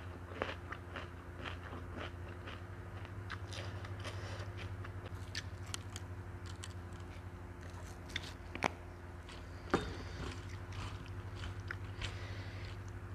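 Close-miked chewing of a mouthful of crunchy salad, with irregular crisp crunches and wet mouth clicks, two of them louder about eight and a half and ten seconds in. A steady low hum runs underneath.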